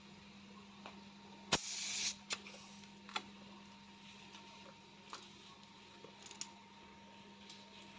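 Faint handling noises over a low steady hum: a sharp click about a second and a half in, followed at once by a short hiss, then a few lighter scattered clicks.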